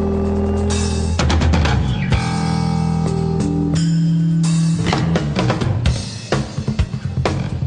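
Live rock band playing an instrumental passage: deep sustained bass guitar notes over a drum kit. About five seconds in the bass drops away, leaving mostly sparse drum and cymbal hits.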